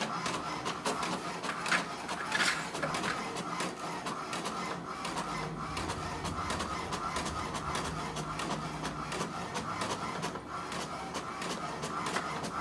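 HP DeskJet 4255e inkjet printer printing a page: a steady mechanical whir with rapid clicking as the paper feeds through, and a lower hum joining in for a few seconds midway.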